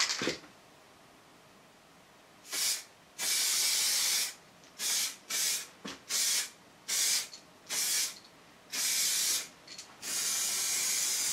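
Aerosol can of colour-matched car touch-up paint spraying in short hissing bursts, about nine of them, the longest about a second and a half, as top coat goes onto a filled and sanded body repair. The spraying starts about two seconds in.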